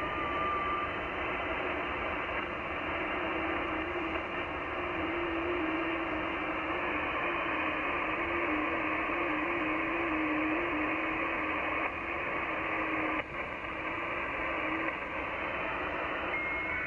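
Amateur radio receiver audio on the 20-metre band: steady band hiss cut off above about 3 kHz, with a low FT8 digital signal warbling in small pitch steps for about twelve seconds. There is a brief dropout near the end.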